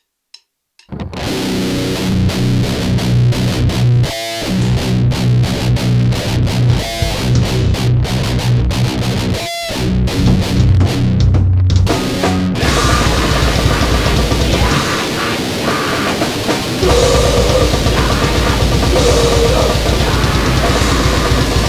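After a couple of short clicks, a grindcore/noise band starts playing about a second in: loud distorted guitar, bass and drums. Around twelve seconds in it turns into a denser, noisier wash.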